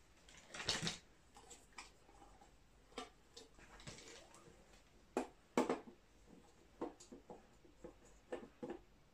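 Handling noise from an Ares Thompson 1928 airsoft replica with its drum magazine fitted: a short rustle about half a second in, then scattered light clicks and knocks, the loudest two close together just past halfway.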